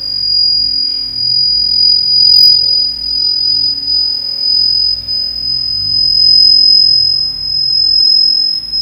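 A steady, piercing high-pitched electronic tone: one pure pitch held without a break, rising very slightly, with faint music underneath.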